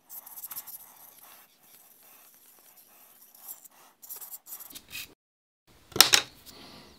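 Pliers and small metal valve parts handled on a workbench: light scraping and small clicks, then one sharp metallic clack about six seconds in.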